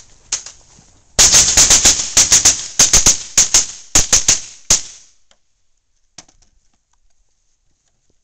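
Rapid string of about twenty semi-automatic rifle shots, fired in quick runs over three and a half seconds, then stopping.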